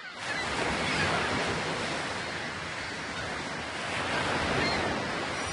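Ocean waves breaking and washing in, a steady rush that swells twice and eases.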